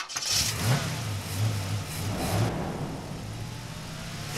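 Car engine revving in a few surges, then running more steadily.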